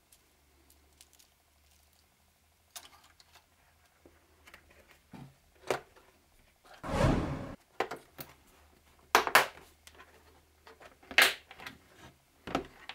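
Hard plastic case being handled and shut: scattered light knocks and rustles, one longer noise about seven seconds in, then several sharp plastic clicks.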